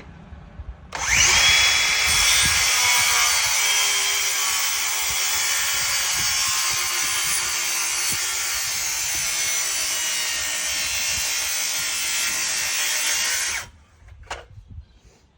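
Handheld circular saw spinning up with a brief rising whine about a second in, then cutting steadily through a timber post, and stopping near the end.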